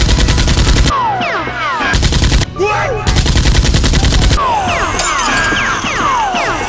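Automatic machine-gun fire sound effects in three rapid bursts, the last about a second and a half long. After the bursts come a steady hiss and short falling whines, repeating every half second or so.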